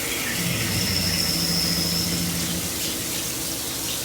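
Milltronics SL10 CNC lathe drilling 304 stainless steel, with flood coolant hissing and splashing steadily. From about half a second in until past two seconds, a low steady hum and a thin high whine sound over it as the drill cuts.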